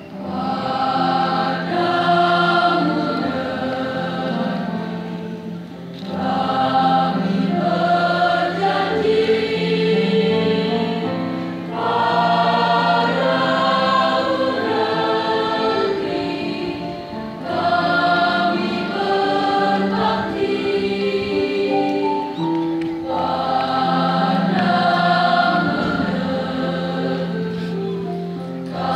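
A mixed school choir of boys and girls singing together in long held phrases, breaking briefly about every six seconds, over a steady low accompaniment from an electronic keyboard.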